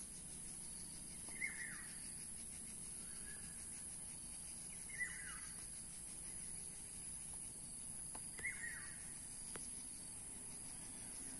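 A bird gives a short, falling call three times, about three and a half seconds apart, over a steady high-pitched hiss of outdoor background.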